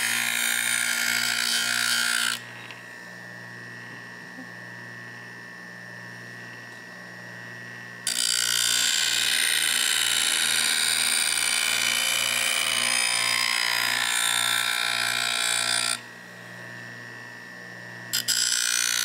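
Bench grinder wheel grinding the steel of a rusty drawknife blade: a loud, harsh hiss in three stretches, the first about two seconds long, the second about eight seconds from the third second on, and the last starting near the end. Between them the grinder's motor keeps humming with a thin steady whine.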